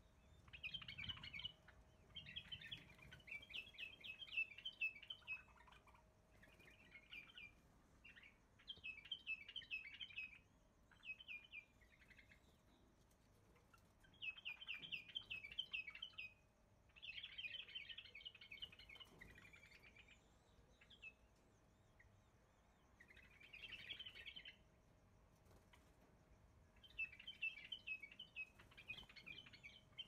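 Small birds chirping in bursts of rapid twittering, each a second or two long and repeating every few seconds, over a faint steady hum.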